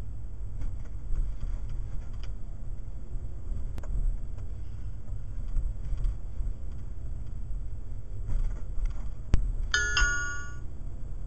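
Steady low rumble of a car driving, picked up inside the cabin by a Lukas LK-7950WD dashcam's microphone. About nine seconds in comes a sharp knock, and just after it a short electronic chime from the dashcam, its signal that it has switched to event recording.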